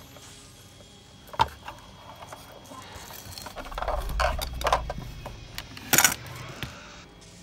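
Handling noise as a toy DeLorean car is taken out of its cardboard box: a sharp click about a second and a half in, then rubbing, scraping and light knocks, with a loud crackle of packaging about six seconds in.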